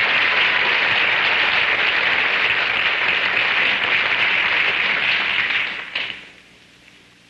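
Audience applauding steadily as a comedian comes on stage, dying away about six seconds in.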